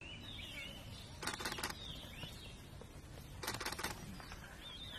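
Forest ambience with birds calling in short, curving whistled notes, and two half-second bursts of rapid dry clicking, about a second in and again about three and a half seconds in.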